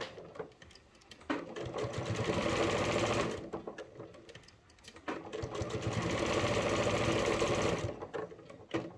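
Domestic electric sewing machine stitching through a layered fabric-and-batting coaster in two runs, about two and three seconds long, with a pause between them.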